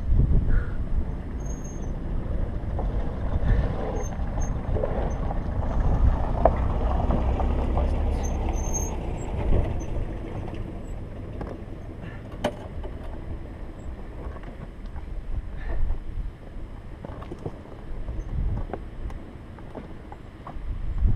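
Wind buffeting the microphone in a low rumble that swells for several seconds in the first half, with scattered knocks and scrapes on gravel as the fallen motorcycle is handled.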